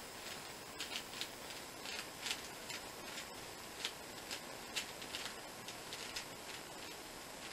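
Plastic clicking of a 3x3 Rubik's cube as its layers are turned quickly during a timed solve, in irregular clicks about two a second.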